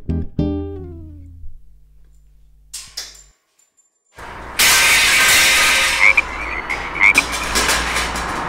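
Acoustic guitar music ends, its last notes dying away, then after a short silence a night-time outdoor ambience comes in: a loud, steady hiss with a run of short chirping calls.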